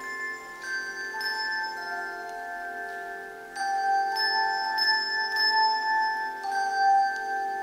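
Handbell choir ringing handbells in chords: several bells struck together, their tones ringing on and overlapping as new chords come in every half second to a second. The playing gets louder about halfway through.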